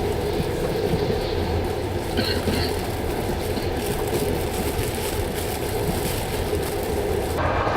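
Passenger train running along the track: a steady rumble of wheels on rails, with the sound changing abruptly near the end.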